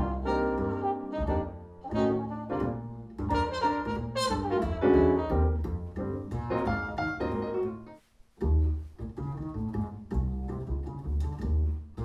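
Jazz with a trumpet and a plucked upright double bass, played back in the room through Q Acoustics 3020 bookshelf speakers with an Indiana Line Basso 830 subwoofer adding deep bass. There is a brief gap about eight seconds in.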